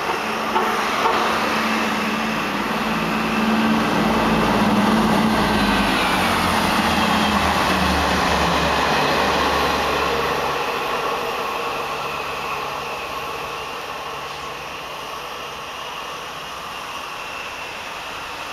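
Diesel multiple unit train running on the main line, its engines humming steadily with rail noise. The sound is loudest in the first half, then fades as the train draws away.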